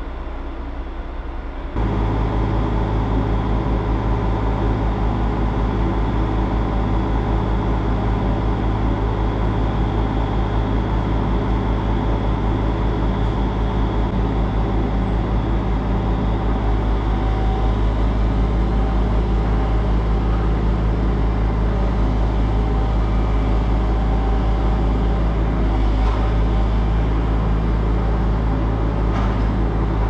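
Diesel engine of a log truck with a truck-mounted log loader running steadily, a low drone with an even pulse, as the loader is put to work unloading logs. It gets louder about two seconds in and stays level after that.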